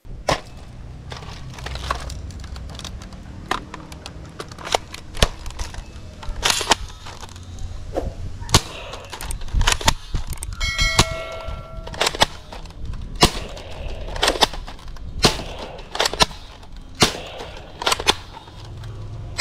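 A plastic toy sniper blaster being cocked and fired again and again: a string of sharp plastic clacks and snaps at irregular intervals, some with a short ring. About halfway through, a short chime of several steady tones sounds.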